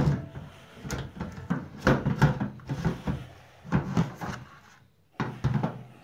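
Hard plastic knocks and clatter as a Bosch washer's drain pump assembly is handled and bumped against the washer cabinet's access opening: a string of sharp knocks, with a short pause about five seconds in.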